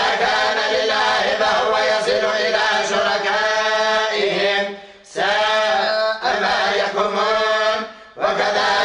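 Voices chanting the Qur'an together in the slow, drawn-out psalmody of western Algeria (chergui mode): long melismatic held notes, broken by two short breath pauses, about five seconds in and again near the end.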